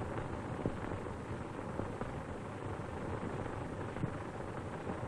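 Steady hiss and rumble of an old optical film soundtrack, with a faint constant hum tone and a few scattered clicks of crackle.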